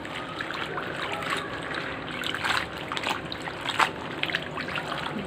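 Hands swishing and squeezing pak choy leaves in a plastic basin of water: irregular splashing and sloshing, with a couple of sharper splashes in the middle.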